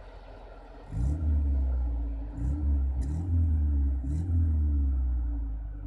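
Ford Sierra's exhaust at the tailpipe, the engine idling and then revved in about four quick blips from about a second in, each rising and falling in pitch with a brief crackle, easing back toward idle near the end.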